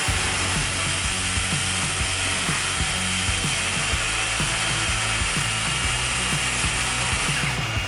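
A power tool running steadily with a fast mechanical rattle, likely cutting through wooden floor joists; it stops near the end.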